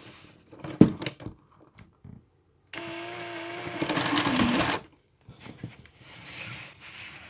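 A few plastic clicks and knocks, then a cordless drill spins a LEGO engine model for about two seconds: the drill's motor whines steadily while the plastic pistons, gears and timing chain clatter, the rattle growing louder before it stops suddenly.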